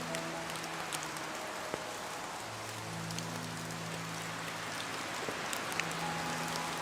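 Steady rain falling on a surface, with scattered individual drops ticking sharply through it. Under the rain, soft low held musical tones shift to a new chord every couple of seconds.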